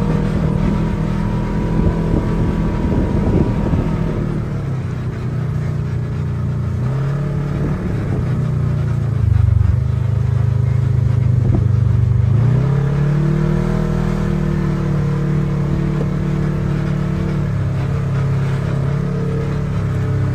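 Side-by-side UTV engine running as it drives along, its pitch dropping and rising several times as the throttle eases off and comes back on.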